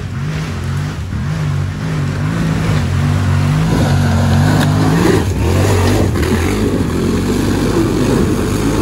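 ATV engine revving, its pitch rising and falling as the throttle is worked. About four seconds in the engine note turns rougher and more uneven.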